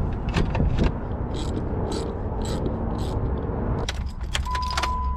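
Ratchet wrench clicking in short strokes, about two a second, as a battery terminal nut is tightened. About four seconds in come a few sharp clicks of the key at the Jeep Wrangler's ignition, then a steady high warning chime.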